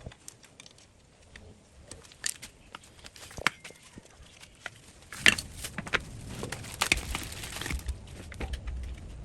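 Scattered light clicks, clinks and knocks of hard parts being handled, sparse at first and coming thicker over a low rumble from about halfway through.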